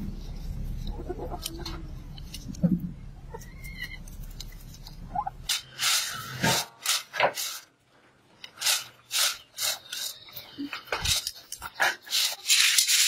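Hens clucking now and then over a low background rumble. About five seconds in, dry red kidney beans click and rattle against a metal tray in short strokes, roughly two a second, as a hand sorts through them. Near the end a continuous rattle of beans begins.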